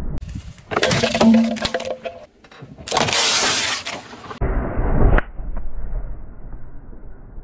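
A car tyre rolling over and crushing objects on asphalt, in several short cuts: crackling and cracking, then a loud burst of crunching about three seconds in.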